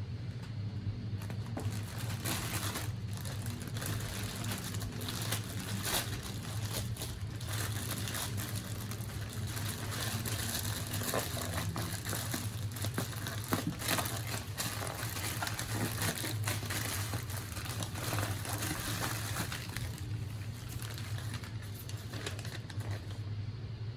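Handling and unboxing of the Sony WF-1000XM5 earbuds' paper packaging: irregular crinkling, rustling and small clicks, over a steady low hum.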